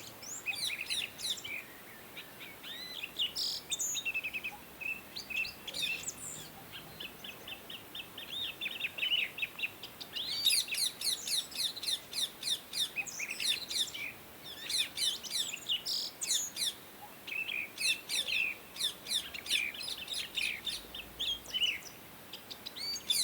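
Pet parrots chirping: rapid runs of short, high chirps in bursts with brief pauses between them.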